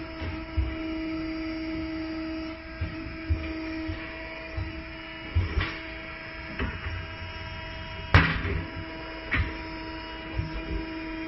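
Truck tire changer running with a steady electric hum while its bead tool works a truck tire off the rim, broken by scattered clunks and knocks of metal against rubber and steel; the sharpest knock comes about eight seconds in.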